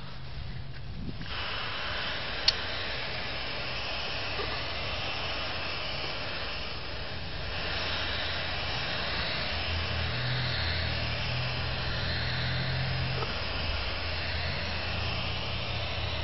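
Steady whir of a small electric blower motor with rushing air, starting about a second in, with one sharp click a couple of seconds in.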